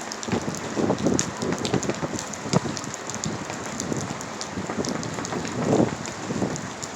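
Rain falling at the front of a severe thunderstorm, with many irregular sharp drop hits close to the microphone over a steady hiss of rain.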